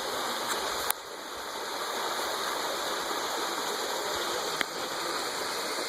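Steady rushing noise of flowing water, with two short sharp clicks, about a second in and again near the end.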